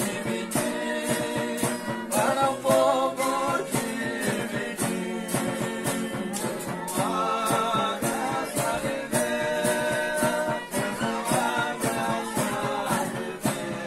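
Folia de reis style devotional singing: several men's voices singing long, wavering drawn-out lines together, over a strummed string instrument and a steady percussion beat of about three strokes a second.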